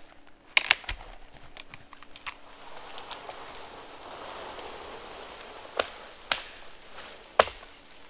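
Dead standing tree pushed over by hand: sharp cracks as the trunk snaps about half a second in, then a rushing swish as it falls through snowy spruce branches, and more loud cracks of breaking wood near the end.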